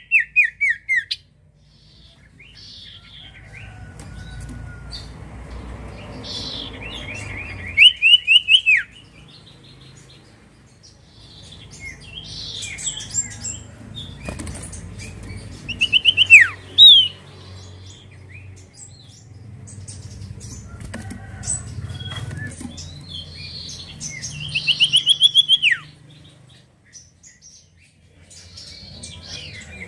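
Common iora (cipoh) calling: loud bursts of rapid repeated notes, one about every eight seconds, with softer chirps in between.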